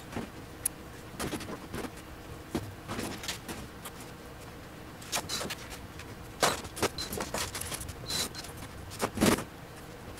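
Sheet-metal enclosure panels being handled and fitted: scattered knocks, light clanks and rustles. The loudest knocks come about six and a half and nine seconds in.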